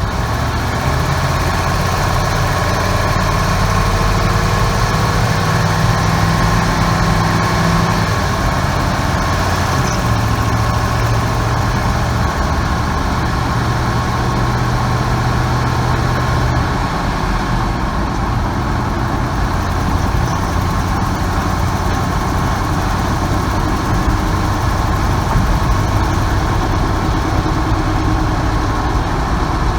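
1998 Ford van's 5.4-litre two-valve V8 running near idle, its speed shifting slightly a few times, with the startup exhaust noise that the owner traced to a cracked exhaust manifold between cylinders 6 and 7.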